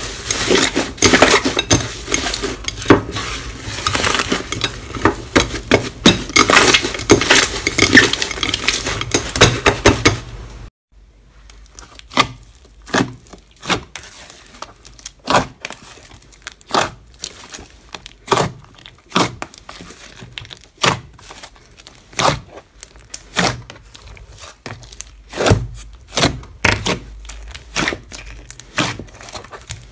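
Slime squeezed and stretched by hand, giving dense crackling and popping of trapped air. About ten seconds in it stops briefly, then white foaming slime pressed by hand in a plastic tub gives separate sharp pops and clicks, about one or two a second.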